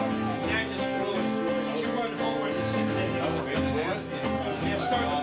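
Acoustic guitar strummed in a steady rhythm, chords with a bass line, played solo with no singing.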